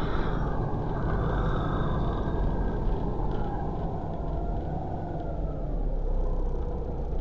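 Volvo B7RLE single-deck bus heard from inside the passenger saloon: its seven-litre six-cylinder diesel and running gear make a steady rumble, with a faint whine that rises and falls in pitch.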